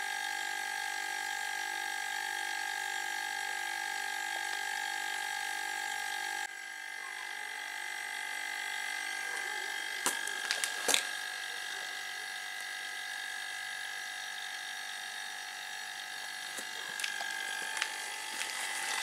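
Refrigerator compressor, rebuilt as a small air compressor, running steadily while it charges its propane-bottle tank: an even hum with a high whine, the charge still building slowly. A few light clicks about ten seconds in and again near the end.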